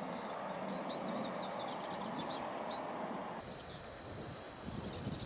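Small birds chirping in quick runs of short high notes, loudest near the end, over a steady rushing background that drops away about three and a half seconds in. Low rumbles come in near the end.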